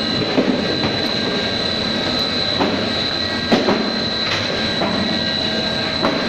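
Pet-treat extrusion production line running: a steady mechanical drone with a constant high whine, broken by irregular sharp clacks every second or so.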